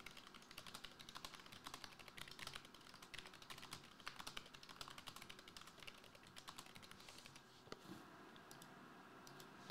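Typing on a computer keyboard: a quick, quiet run of key clicks that thins out to a few scattered keystrokes near the end.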